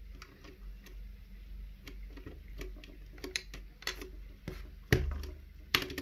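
Small plastic clicks and taps of PBT keycaps being handled and pressed onto the Cherry MX Red switch stems of a 60% mechanical keyboard. One sharper click comes about five seconds in, and a quick flurry of clicks near the end.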